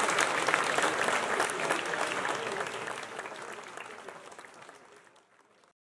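Audience applauding, a dense patter of clapping that fades out over the last few seconds and stops shortly before the end.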